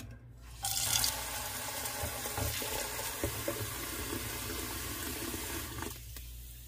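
Kitchen tap water running into a saucepan in a stainless steel sink, filling it around a plastic-bagged lump of frozen meat. The tap comes on about half a second in and is shut off shortly before the end.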